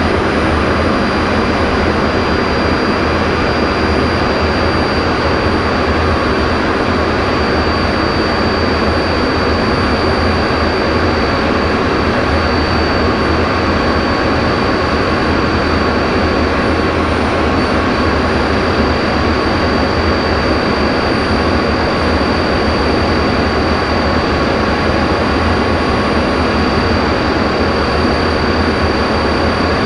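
BAC Jet Provost's single turbojet engine running steadily in flight, heard from inside the cockpit as a loud, even rush of noise. A thin high whine holds steady over it throughout.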